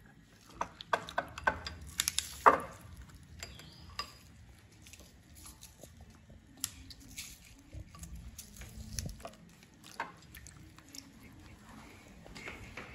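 Light clinks and knocks of kitchen items being handled on a counter: a quick run of sharp clicks in the first couple of seconds, the loudest about two and a half seconds in, then sparser faint ticks.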